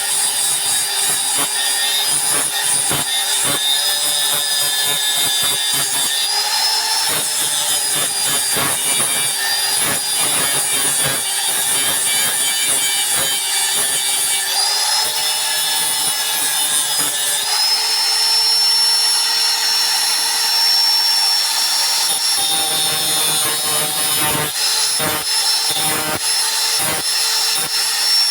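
Electric grinder running with a steady whine as a fruit-picking sickle blade is sharpened on it, with a continuous grinding rasp. The whine's pitch shifts a little a few times as the pressure on the blade changes.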